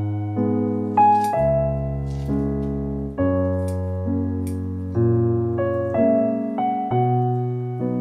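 Piano background music, notes and chords struck about once a second and decaying between them. A few faint crisp snips of kitchen scissors cutting greens come through over it.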